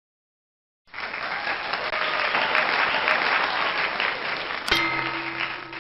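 Applause that starts abruptly about a second in. Near the end a sharp hit is followed by a ringing, bell-like ding of several steady tones.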